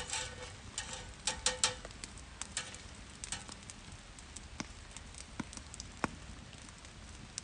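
Wood campfire crackling under a grill grate of cooking meat: irregular sharp pops and snaps, with a quick cluster of louder ones about a second and a half in.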